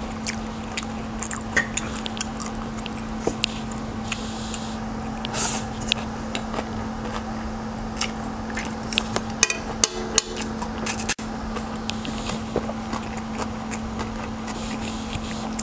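Close-miked eating of chow mein noodles: chewing and mouth sounds with scattered short clicks of chopsticks against a wok, over a steady low hum.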